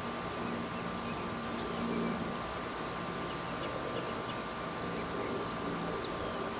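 Honeybees buzzing around the microphone, a wavering hum that shifts in pitch as they fly, with faint high chirps over it.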